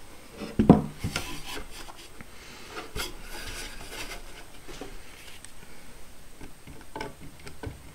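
Pine boards and a clamped workpiece being handled and shifted on a plywood workbench: a sharp knock a little under a second in, then wood scraping and rubbing against wood.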